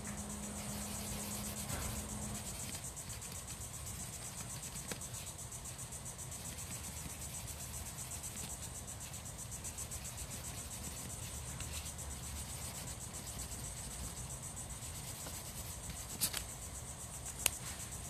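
Insects chirring: a steady high-pitched buzz with a fast, even pulse. Two sharp clicks come near the end.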